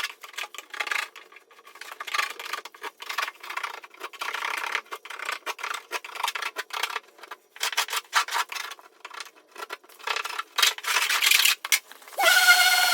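Irregular scraping and rubbing strokes of a hand tool working plaster at a crack in plasterboard. Near the end a power tool starts running with a steady whine.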